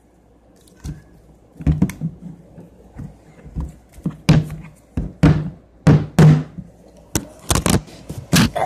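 Irregular thuds and knocks, about a dozen, from a plastic peanut butter jar being gripped and wrestled with while its stuck lid is forced.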